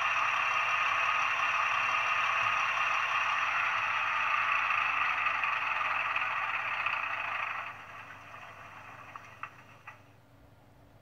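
Model diesel locomotive's LokSound sound decoder playing the engine sound of a DB class 212 diesel through its small speaker, a steady running noise. About eight seconds in the engine sound drops away sharply, followed by a few small clicks.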